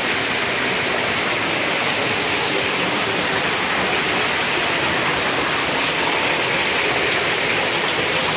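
Steady rush of an artificial waterfall, water pouring down onto rocks and into a pool.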